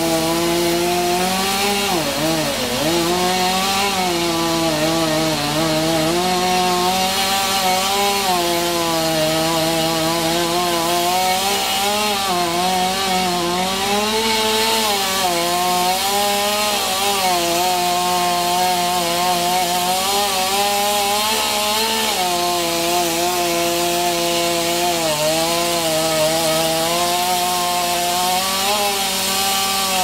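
Two-stroke chainsaw running at high revs the whole time, its pitch wavering and dipping briefly under load as it cuts wood.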